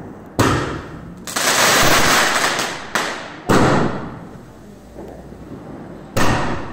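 Fireworks bursting overhead. A sharp bang comes under half a second in, then a dense hissing, crackling rush lasts about a second and a half, then more sharp bangs follow: the loudest about three and a half seconds in, and another near the end.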